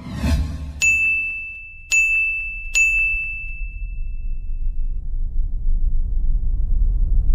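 End-screen sound effects: a whoosh, then three bright dings about a second apart on the same high tone, ringing out. Under them a low rumble builds steadily louder.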